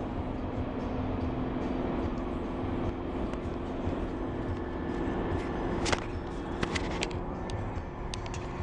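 Engine and road noise inside a vehicle driving at highway speed: a steady hum over the rumble of the tyres, with a few sharp clicks from about six seconds in.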